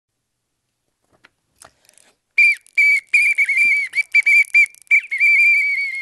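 Small plastic whistle blown in a quick string of short toots, then one longer held blast near the end.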